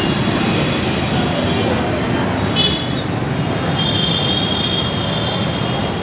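Busy street traffic noise, with auto-rickshaws and other vehicles running and passing close by. A thin high squeal comes in briefly about two and a half seconds in and again for about a second near four seconds.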